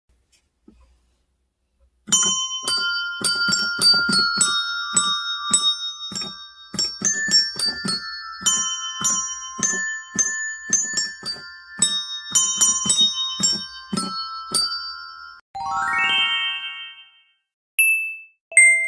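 A bright, bell-like melody of quick struck notes that ring on, about three a second, followed by a rising glissando sweep and two single chime dings near the end.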